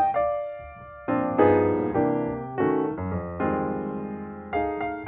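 Background piano music: chords struck every second or so, each left to fade, with a brief quieter spell about a second in.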